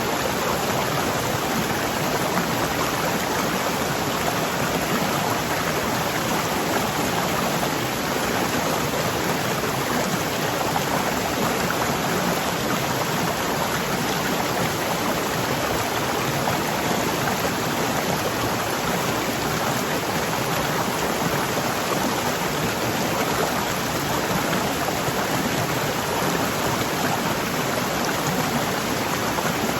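Waterfall: powerful, fast-flowing water rushing in a dense, steady wash of noise that stays even throughout.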